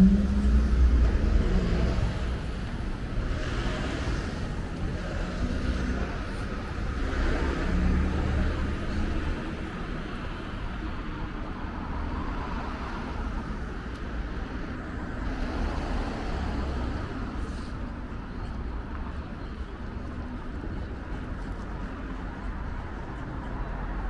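City street traffic: cars passing, loudest in the first couple of seconds, with further swells a few seconds in, over a steady low rumble of traffic.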